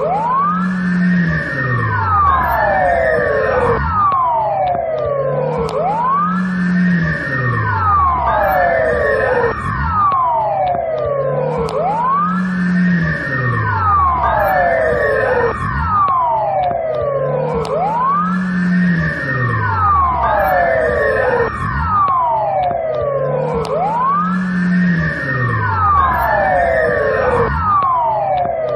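Belarusian police siren wailing loudly, with overlapping tones sweeping up and down in pitch. The pattern repeats about every six seconds, and a lower tone rises and falls beneath it.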